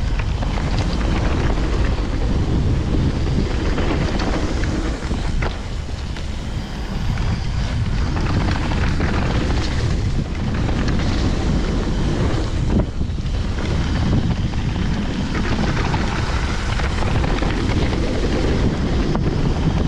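Wind buffeting the microphone while riding a mountain bike downhill at speed, over steady tyre noise on the trail. Scattered short knocks and rattles come from the bike over bumps.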